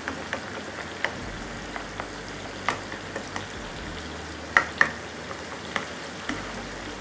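Marinated chicken and tomatoes frying in oil in a wok, a steady sizzle. A metal spoon stirs and presses the tomatoes against the pan, giving irregular clinks and scrapes, the loudest about two-thirds of the way through.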